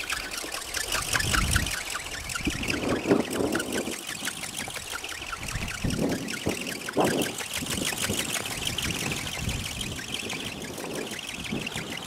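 Strong wind buffeting the microphone in irregular gusty rumbles, over a fast, even ticking.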